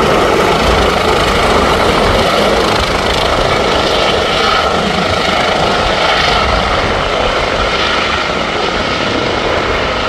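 Airbus H145 helicopter's rotor and turbine noise, a loud steady drone, as it hovers and climbs away carrying a full Bambi Bucket of water. It grows a little quieter toward the end.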